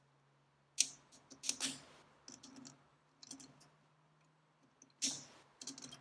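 A pick scraping and clicking in the threads of an air hose quick coupler part as it is turned slowly by hand in a lathe chuck, chipping out old, brittle Loctite thread sealant. Irregular short scrapes and sharp clicks, the loudest about a second in and again about five seconds in.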